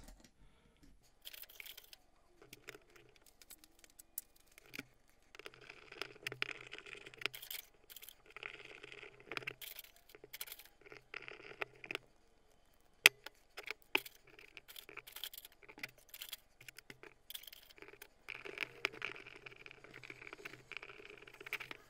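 Metal parts handled and screws driven into a small steel jaw assembly with a hand driver: scattered clicks and light scrapes, with stretches of rustling and one sharper click about halfway through.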